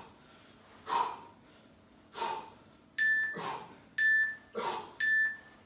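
Heavy breathing from a man straining through heel taps, a hard exhale about once a second. Over it, three short electronic beeps one second apart from an interval timer counting down the last seconds of the set.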